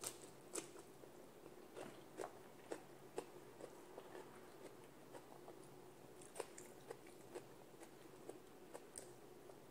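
Faint chewing of a mouthful of rice and vegetables eaten by hand, with small lip smacks and clicks coming irregularly, about one or two a second.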